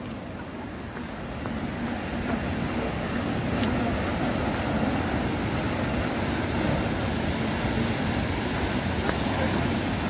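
Steady rushing roar of a waterfall, growing louder over the first few seconds and then holding even.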